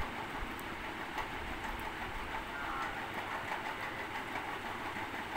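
Aloo tikkis shallow-frying in oil on a nonstick tawa: a steady, even sizzle as they crisp.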